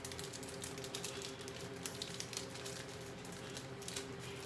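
Plastic-foil chip packets crinkling as they are handled and pulled open by hand: a dense run of small crackles over a steady low hum.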